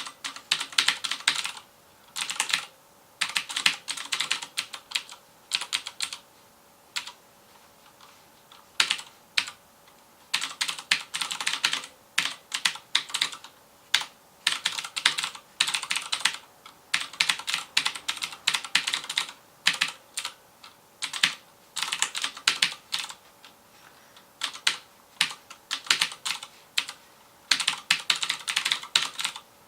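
Typing on a FILCO Majestouch Convertible 2 mechanical keyboard with clicky Cherry MX Blue switches: quick runs of keystrokes, each lasting about a second, broken by short pauses.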